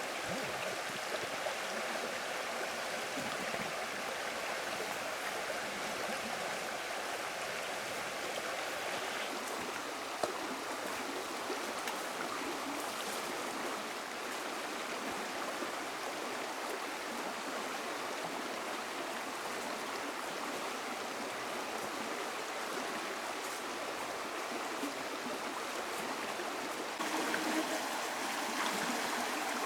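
Stream water running steadily, with one sharp click about ten seconds in and the flow a little louder near the end.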